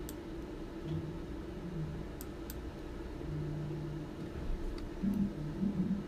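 Steady low machine hum in the room, with a few faint clicks scattered through it.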